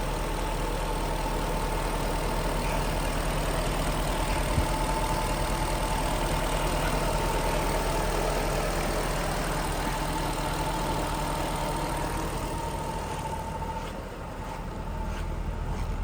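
Ford FPV Super Pursuit ute's V8 engine idling steadily, with a single sharp click about four and a half seconds in.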